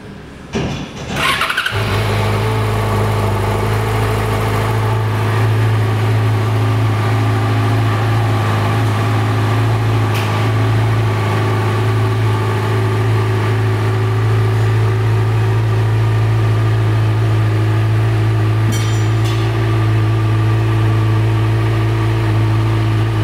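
A 2009 Yamaha FZ6R's inline-four engine is cranked on its electric starter and catches about a second and a half in, then idles steadily.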